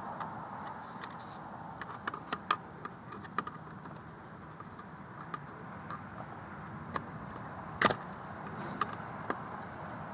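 Scattered small clicks and taps of a screwdriver prying at the clips holding carpet trim onto a car's rear-seat latch, with one louder click about eight seconds in.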